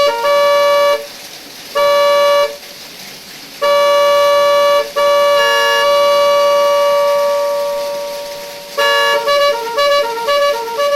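Termignoni 'telolet' multi-tone electric horn with 18 sound patterns sounding: three blasts of about a second each, then a long held note that slowly fades, then a quick run of short notes playing a tune near the end.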